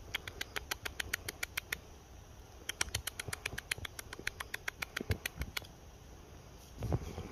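A fast, even series of sharp ticks, about seven a second, in a run of nearly two seconds and then, after a short pause, a run of about three seconds.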